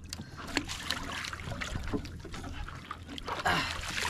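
Seawater splashing and dripping as a freshly caught silver scabbard fish is dipped into the sea over the side of the boat and pulled up again, with light clicks and knocks.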